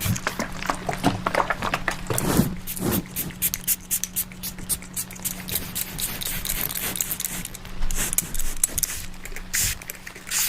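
Parrot bathing, with repeated quick splashes and wing-flapping in water and a few short calls about one to three seconds in.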